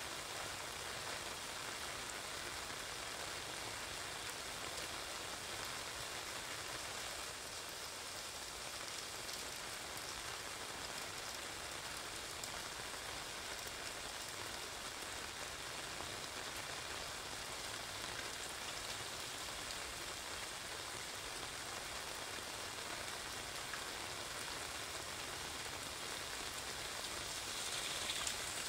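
Steady rain pattering on an umbrella overhead and on wet pavement, an even hiss that swells briefly near the end.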